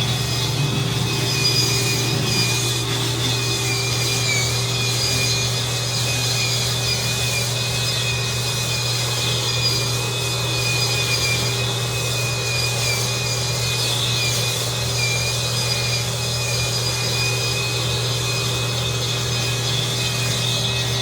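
Electric spin scrubber running without a break, its spinning brush pressed against the bathtub's side to scrub off brown grime: a steady motor hum and whine that wavers slightly under the load, over the rough rubbing of the bristles.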